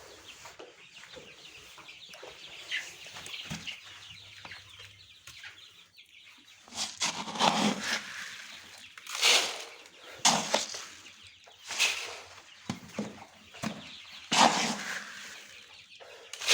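Chickens clucking and moving about, with a series of loud, short, rustling sounds about every one to two seconds in the second half.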